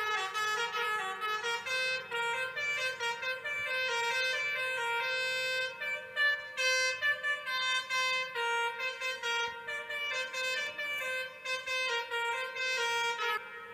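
Pianika (melodica) playing a telolet basuri bus-horn melody: a quick run of reedy notes over a held lower note, stopping just before the end.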